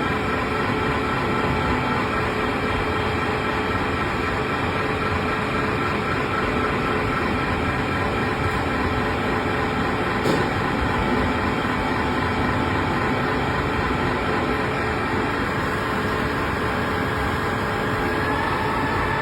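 Servo-controlled U-drilling machine with its high-pressure coolant system running: a steady mechanical noise with several steady tones. There is a single click about ten seconds in, and near the end one tone begins to fall in pitch.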